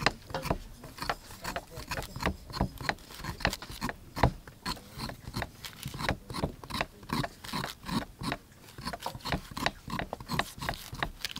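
A large kitchen knife shaving the skin and eyes off a pineapple in short, rapid scraping strokes, about three a second, with one louder stroke about four seconds in.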